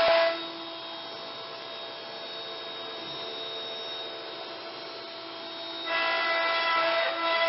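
CNC router spindle cutting a block of wood: a loud steady whine with rushing cutting noise. About half a second in the cutting noise falls away, leaving a quieter running hum, and the full cutting sound comes back about six seconds in.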